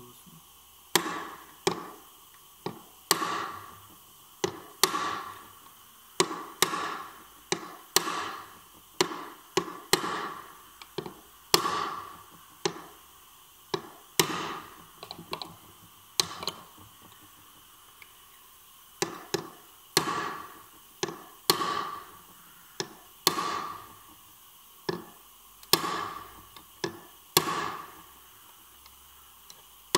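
Hammer blows on metal, about one to two strikes a second, each ringing briefly, with a pause of about three seconds in the middle. The blows fall on a dismantled manual gearbox's parts as they are tapped into place.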